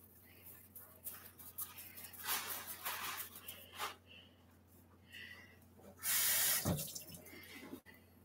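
Toothbrush scrubbing air-dry paint off a vinyl reborn doll head, in short scratchy strokes. About six seconds in, a kitchen tap runs briefly, a loud hiss lasting under a second.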